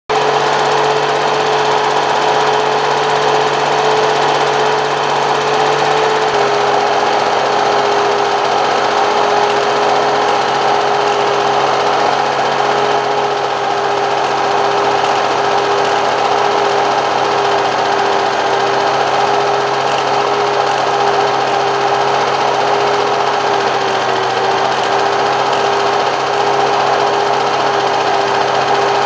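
A machine running steadily: a constant mechanical hum with a steady whine and an even hiss, the pitch stepping down slightly about six seconds in.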